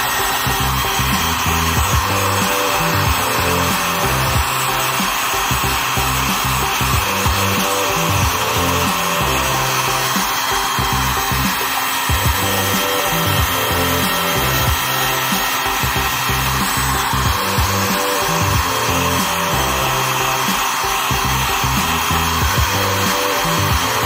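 Electric heat gun running with a steady blowing whoosh of hot air, aimed at a plastic flush-button plunger to soften the hot-glue layer on it.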